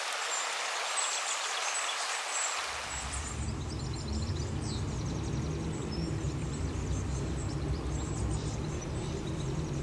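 Soundtrack ambience of running water with small birds chirping, which gives way about three seconds in to a low, steady drone with faint bird chirps above it.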